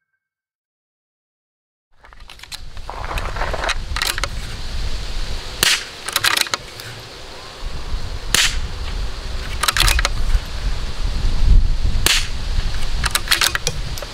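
Tikka T1X .22LR bolt-action rifle being fired at a steady pace, starting about two seconds in. Each sharp shot comes about every two to three seconds and is followed by the quick clacks of the bolt being cycled, over a steady low rumble.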